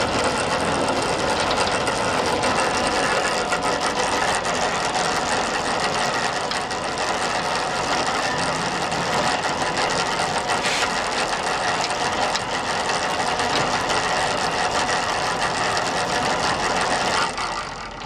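Truck-mounted manure spreader running empty, its chain-driven rear beaters turning with a steady mechanical clatter and rattle over the truck's running engine. The sound drops away near the end.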